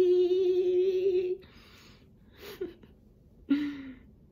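A woman singing holds one long note with a slight waver, which breaks off about a second and a half in. Soft breathy sounds and a few short, quiet voice sounds follow.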